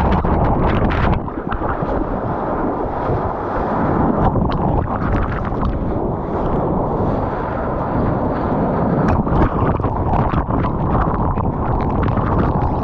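Surf and wind noise on an action camera in the waves: a dense, steady wash of breaking water broken by many short splashes, with wind buffeting the microphone.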